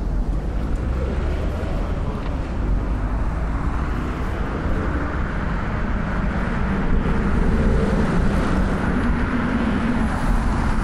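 City road traffic: a steady low rumble of motor vehicles, with a vehicle growing louder a few seconds in and passing close.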